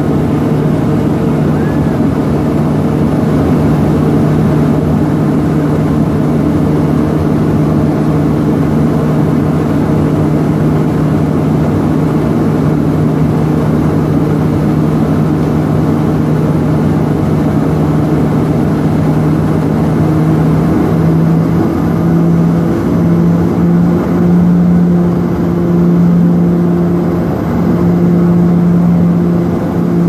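Cabin drone of a LET L-410 Turbolet's twin turboprop engines and propellers on approach, a steady low hum. About twenty seconds in the pitch rises slightly and the hum starts to throb.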